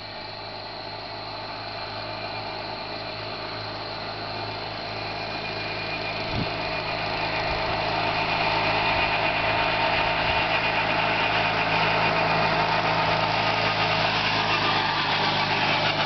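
John Deere racing lawn tractor with a 16-horsepower twin-cylinder engine running flat out at about 30 mph, coming from a distance and getting steadily louder as it drives past.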